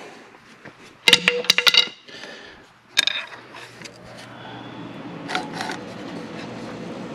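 A screwdriver clicking and scraping against metal at the fan pulley of a 1948 Silver King tractor's engine as it is levered to turn the engine over by hand. There is a quick cluster of sharp metal clicks about a second in and a single click about three seconds in, followed by a faint steady background.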